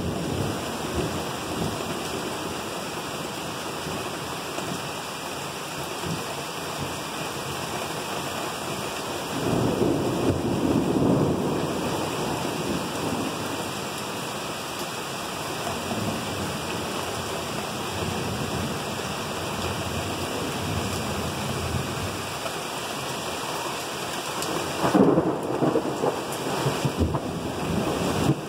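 Rain pelting a camper's roof and windows in a thunderstorm, a steady hiss with thunder rumbling. The sound swells louder about ten seconds in and again near the end.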